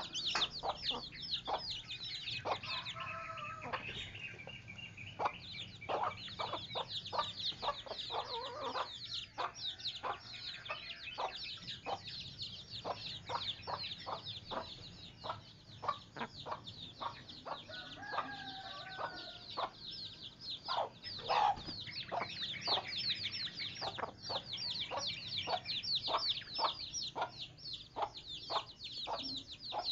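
Chickens clucking in short, quickly repeated clucks, with a couple of longer calls, over a constant high-pitched chirping.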